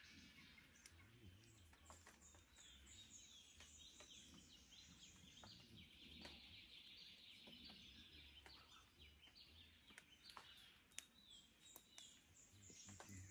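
Faint dawn chorus of Australian forest birds: many small birds chirping and calling over one another in short repeated phrases, with scattered sharp clicks.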